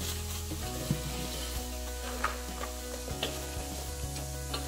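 Plastic wrapping crinkling, with a few light clicks and knocks from a hard plastic carrying case being handled, over background music.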